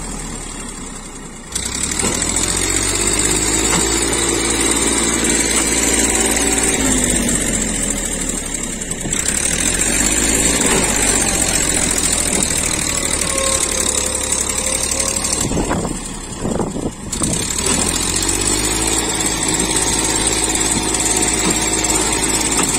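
Massey Ferguson tractor's diesel engine running hard under load while straining to pull a loaded trolley out of deep mud, its pitch rising and falling as the revs change. It picks up sharply about a second and a half in and dips briefly about three-quarters of the way through.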